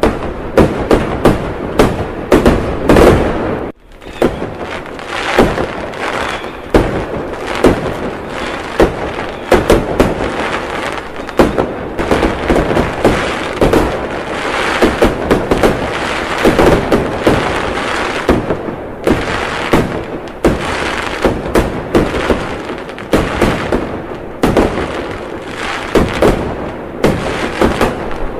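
Fireworks going off in a dense barrage: overlapping bangs and booms, several a second, with a short break about four seconds in.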